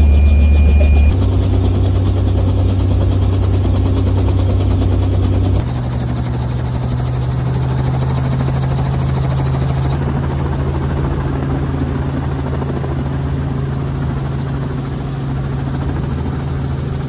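Robinson R44 Raven II helicopter running, heard from inside the cabin: a steady low drone of rotor and engine, which shifts abruptly twice in the first six seconds.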